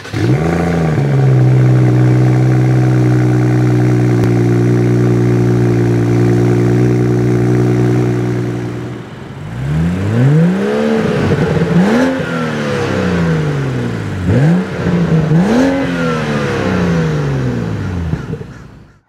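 BMW M235i's turbocharged 3.0-litre inline-six exhaust starting up and settling into a steady fast idle. About nine seconds in the note drops, then the engine is revved and let fall back several times.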